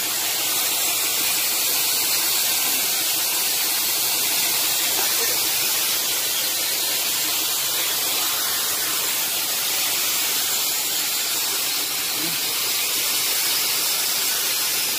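A steady hiss of noise with no distinct events in it.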